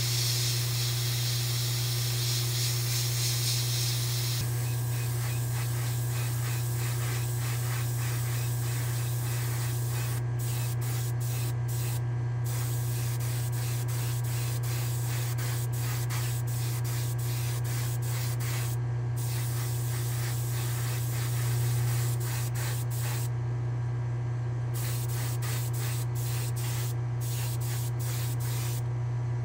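Airbrush spraying paint with a steady hiss, over a steady low hum. The hiss is strongest for the first few seconds. In the second half it breaks off and resumes many times in short on-off bursts as the trigger is released and pressed, laying 2K urethane clear coat on a diecast car body.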